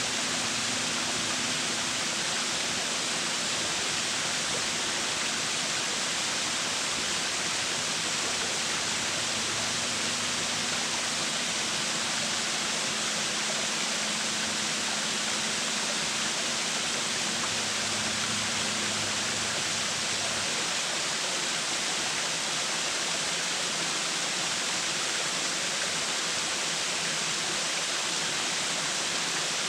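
A waterfall rushing steadily: an even, unbroken roar of falling water that does not change in level.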